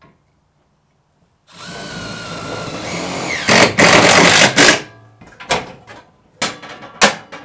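Cordless drill-driver sinking a GRK screw through the back of a metal electrical sub-panel into the wall: the motor runs up with a steady whine, then sounds loudest for about a second as the screw seats. Then come a few sharp metal clicks as the panel's hinged cover is handled.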